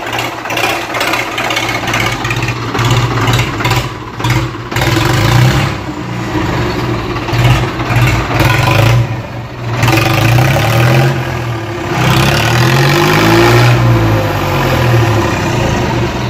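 Ford 3600 tractor's three-cylinder engine revved again and again through a tall straight vertical exhaust stack, loud, its pitch rising and falling with each rev.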